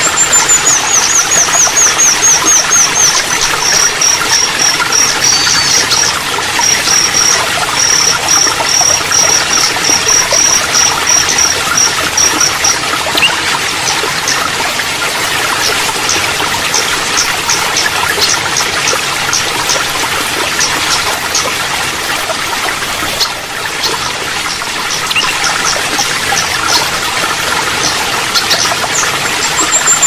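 Steady trickle of running water, with a small songbird singing a fast string of high, repeated notes for roughly the first dozen seconds, then scattered high chirps; the string of notes starts again near the end.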